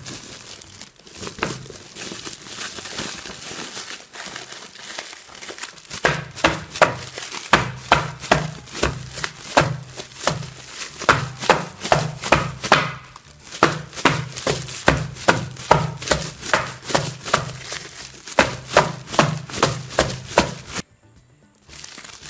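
Woven plastic rice sack full of Chinese potatoes (innala) rustling as it is worked by hand, then thumped and scrubbed against a wooden chopping board in a steady rhythm of about two to three strokes a second, rubbing the thin skins off the tubers. The strokes stop about a second before the end.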